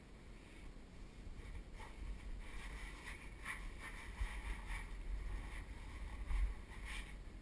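Clothing, gear and the camera scraping and brushing against sandstone walls in a tight slot canyon squeeze, as short scratchy rubs over a low rumble of handling noise on the microphone. The loudest scrape comes a little after six seconds in.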